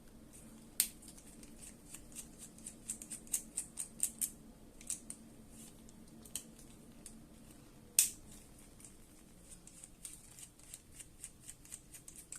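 Two small screws being turned out of the cap of an airsoft gas magazine: a run of faint metallic clicks and ticks from the tool and the part being handled, with a sharper click about a second in and another about eight seconds in.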